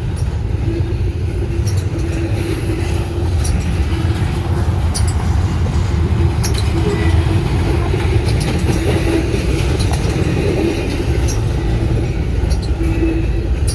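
Norfolk Southern intermodal freight train rolling past at close range: a steady heavy rumble of wheels on rail, with scattered clicks over the rail joints and a faint steady whine.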